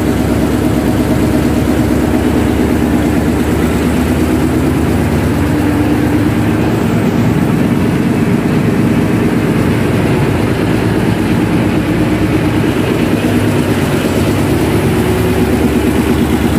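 Marine diesel engine running loudly and steadily at a constant speed, its fast even firing pulse filling the ship's engine room.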